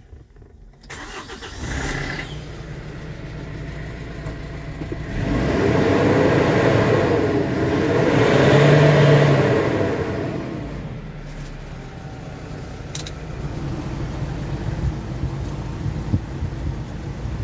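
Kia Bongo III cargo truck engine started with the key about a second in, then idling. It is revved twice, rising and falling in pitch, about midway through, and settles back to a steady idle.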